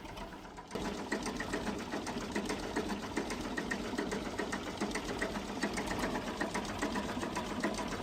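Diesel engine running with a steady, fast, even clatter, starting just under a second in.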